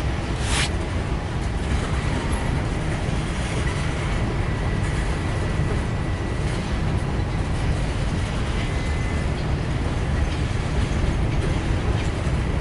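Empty grain train's freight cars rolling slowly with a steady low rumble. There is a sharp click about half a second in, and a faint thin high whine from about two seconds in until near nine seconds.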